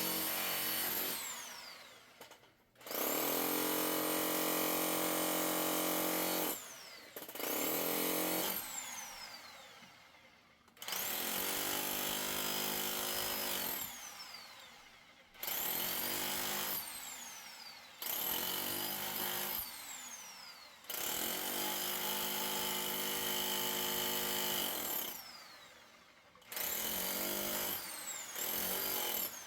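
Electric power tool run in about seven bursts of two to four seconds each, every burst spinning up in pitch, running steadily, then winding down.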